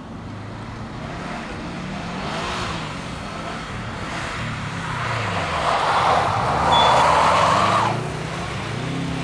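Car engines revving up and down as cars slide around an ice circuit, with a loud rushing hiss for a couple of seconds near the end.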